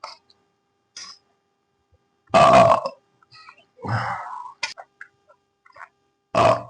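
A person belching loudly three times, each belch about half a second long and roughly two seconds apart.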